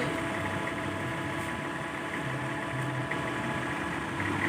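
Forklift engine running steadily as it lifts and positions a generator set, an even mechanical hum.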